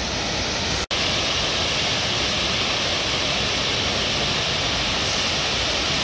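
Waterfall with water pouring over a wide stone ledge, rushing steadily. The sound drops out for a split second about a second in.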